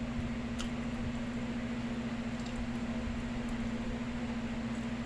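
A steady mechanical hum with one constant low tone, with a few faint clicks scattered through it.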